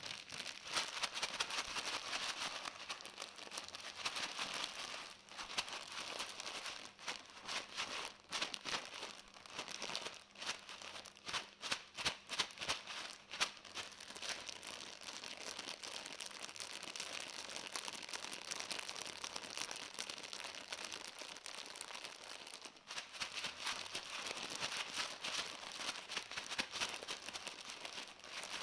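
Crinkling and crackling rustle, dense with small sharp clicks, that goes on with only brief dips.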